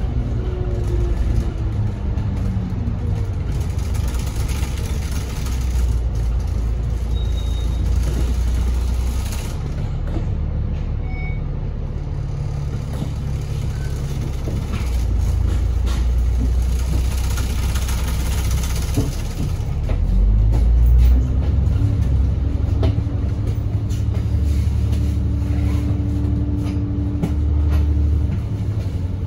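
Alexander Dennis Enviro500 double-decker bus heard from inside the cabin, its engine and gearbox whine falling in pitch as the bus slows at the start, then a steady low rumble while it runs along. About twenty seconds in the whine rises as the bus accelerates, holds steady, and starts to fall again near the end.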